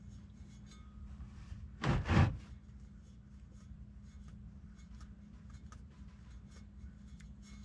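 Faint clicks and rubbing of fingers unthreading the knurled thumb-screw drain plug on a Ford 6.0 Power Stroke diesel's fuel water separator, over a low steady hum. One brief loud bump about two seconds in.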